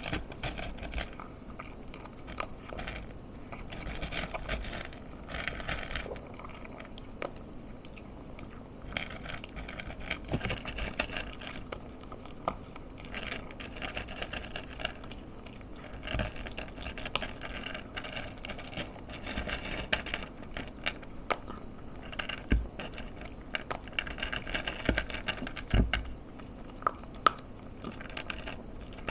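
A Pomeranian eating from its bowl: irregular chewing and lapping with small clicks and scrapes of food and teeth against the bowl, and a couple of louder low knocks in the second half.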